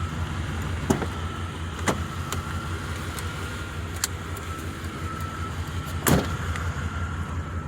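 Buick Roadmaster V8 idling steadily with a low rumble. A few sharp clicks sound over it, one about a second in, then around 2, 4 and 6 seconds, with a faint steady high tone underneath.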